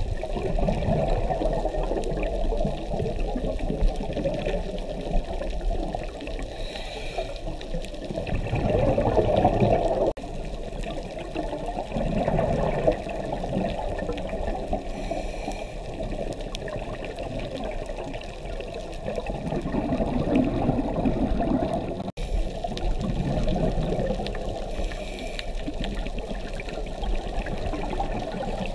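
Muffled underwater water noise with swells of bubbling and gurgling every few seconds, typical of a scuba diver's exhaled regulator bubbles. There is a brief abrupt break about two-thirds of the way through.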